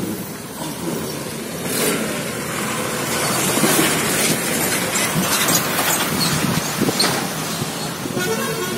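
Vehicle travelling on a rough, muddy gravel road: a steady rush of road and wind noise with scattered knocks and clicks from the uneven surface.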